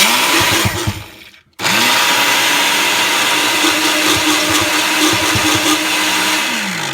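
Countertop blender motor blending a thick mix of Takis chips, bananas and ice cream: it runs briefly, stops, then starts again with a rising whine and runs steadily for about five seconds before spinning down near the end.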